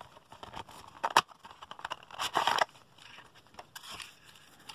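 Small cardboard toy box being opened by hand: crackling and scraping of the paperboard flaps and inner tray as they are pulled apart and slid out, with a sharp click about a second in and a longer scrape around two seconds in.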